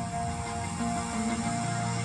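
Electronic ambient-style music with sustained tones, played through a set of Jaguar XF Meridian 165 mm car speakers; a deep bass note swells in near the end.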